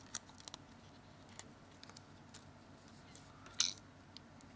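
Scattered light clicks and taps of small phone parts being handled and pressed into place, with one sharper click about three and a half seconds in.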